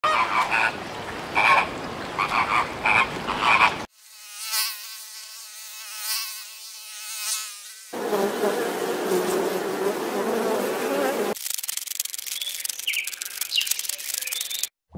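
Several short animal-sound clips cut one after another: a run of repeated calls about twice a second, then a high buzzing drone, then a noisy stretch, then clicking with a few chirps.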